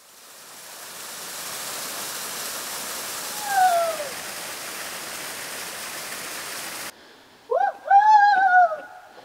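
Steady rain hiss, fading in over the first two seconds and cutting off suddenly about seven seconds in, with a short falling whistle a little past three seconds. Near the end a person's voice calls out twice, rising then falling in pitch.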